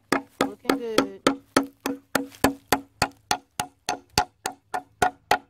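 Claw hammer driving nails into two-by-four framing lumber: a steady run of strikes, about three or four a second, each with a short ring.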